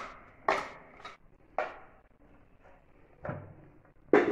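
Plastic spatula knocking against the plastic bowl of a food chopper as chopped onion, garlic and coriander is scraped out onto a plate: a few sharp knocks about half a second apart, then after a pause a softer thud and another knock near the end.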